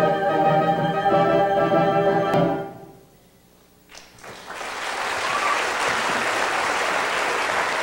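Orchestral music holding a final sustained chord that dies away about two and a half seconds in. After a brief hush the audience breaks into steady applause.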